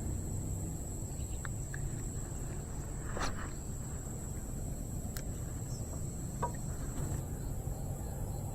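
Insects trilling in one steady high-pitched note, over a low background rumble, with a few faint clicks.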